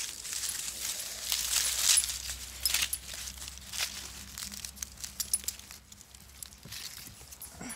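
Dry fallen leaves crackling and crinkling under a cat as it rolls and squirms on its back while being petted. The crackling is busiest in the first three seconds and thins out toward the end.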